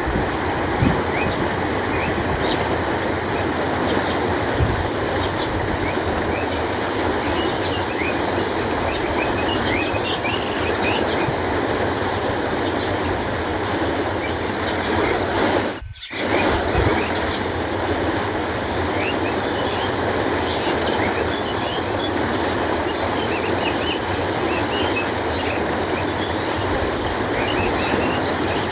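Canal water flowing steadily, a continuous rushing, with small birds chirping lightly over it. The sound cuts out briefly a little past halfway, then carries on.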